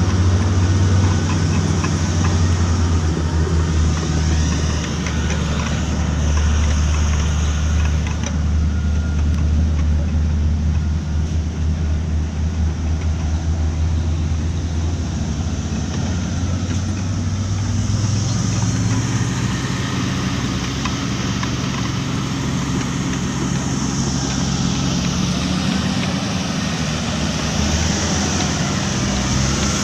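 Diesel engine of a crawler surface drill rig running steadily, its note changing about halfway through.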